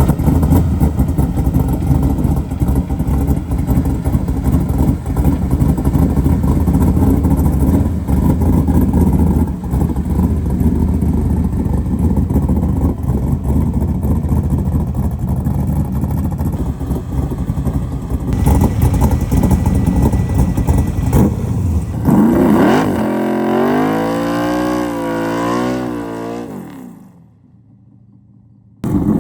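Manual-transmission vehicle driving under way, with steady engine and road noise. Near the end the engine pitch rises and falls a few times before the sound fades away.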